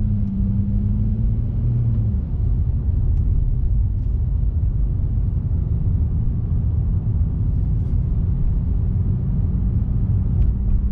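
Car cabin noise while driving: a steady low rumble of engine and road, with an engine hum that fades about two seconds in.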